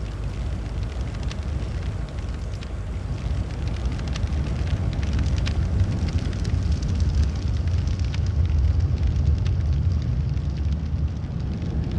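Fire of burning photographs and kindling: a steady low rumble with scattered crackles, growing louder in the second half.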